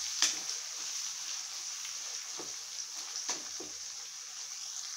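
Masala paste with onions and tomatoes sizzling steadily in hot oil while a spatula stirs it, with a few short scrapes of the spatula against the pan. The paste is being fried down until the oil separates.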